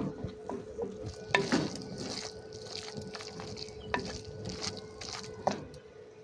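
Food cooking in a pan: a utensil scraping and clicking against the pan over a light sizzle, with a few sharper clinks, and a steady low hum underneath.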